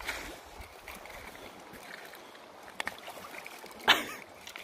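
Shallow river water splashing and trickling as a German wirehaired pointer mouths a carp at the water's edge. Two quick clicks come a little under three seconds in, and one brief, louder sound about four seconds in.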